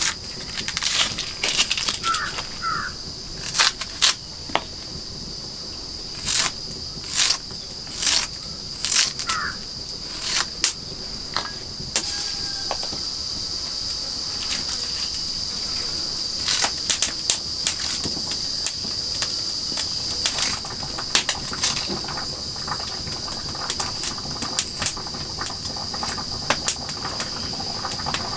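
Red onions being sliced on a curved floor-mounted hasiya blade, giving short crisp crunches at irregular intervals. Under them runs a steady high-pitched insect trill, and a bird chirps a few times in the first ten seconds.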